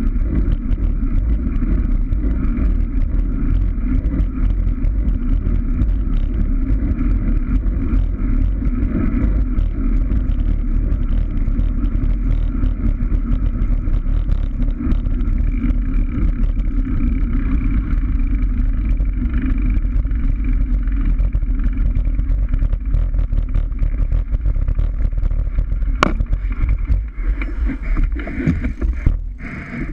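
Steady wind noise buffeting the microphone of a bicycle-mounted camera while riding on a road, with a single sharp knock near the end. The noise eases and breaks up in the last second as the bike slows.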